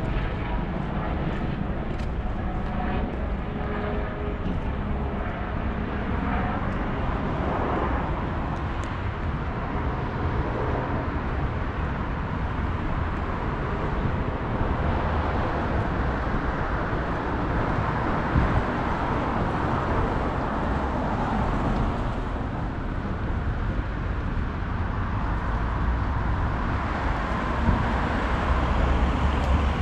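Street traffic: cars running past on the road alongside in a steady stream, with a low engine rumble growing louder near the end.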